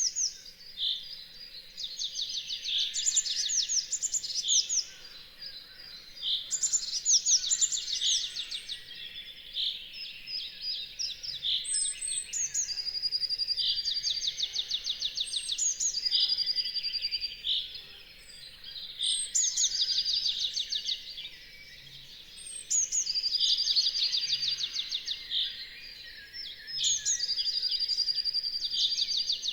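Dawn chorus of songbirds: several birds sing over one another in high, rapid trills of two or three seconds each, repeating every few seconds.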